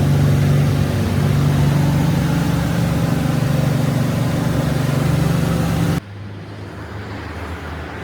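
Vehicle engine running steadily. It cuts off suddenly about six seconds in and gives way to a quieter engine hum.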